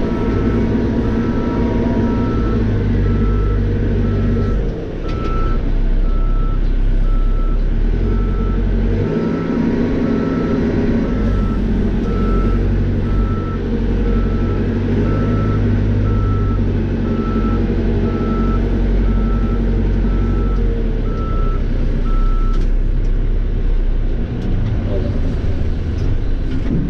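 Cat 430E backhoe loader's diesel engine running and working under load, heard from inside the cab, its pitch and level shifting as the machine works. A reversing alarm beeps steadily about once a second and stops about five seconds before the end.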